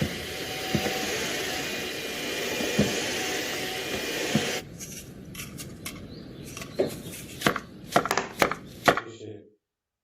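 Kitchen sounds. A steady hiss with a few soft knocks runs for about four and a half seconds, then cuts out. It is followed by a run of sharp, uneven wooden knocks and clacks, like utensils and dishes being handled.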